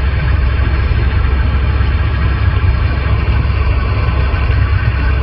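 Steady low rumble of a car's engine and road noise inside the cabin, under an even hiss of open-channel static from a Superstar 3900EL CB radio receiver.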